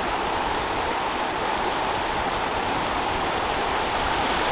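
Fast-flowing river water rushing steadily over rocks at a waterfall, a constant even rush.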